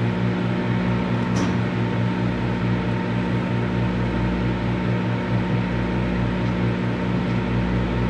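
Microwave oven running: a steady electrical hum with the whir of its fan. A short, high crackle sounds once about a second and a half in.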